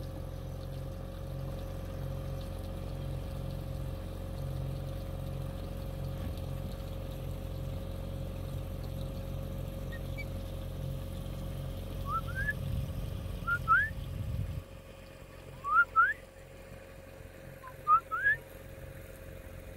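Boat engine running with a steady low hum, which drops away about three-quarters through. Over it, in the second half, ospreys give a series of short, rising whistled chirps, some in quick pairs.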